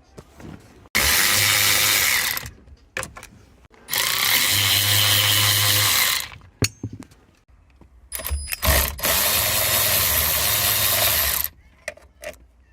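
Cordless power driver on an extension running in three bursts of one to three seconds each, spinning out the steering-wheel airbag retaining bolts. Between the bursts there are small clicks and handling noises.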